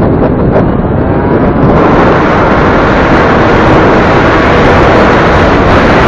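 Loud wind buffeting the EKEN H9R action camera's built-in microphone while riding a motor scooter, a heavy rumbling roar that buries the scooter and traffic. It eases a little during the first second or two, then comes back at full strength.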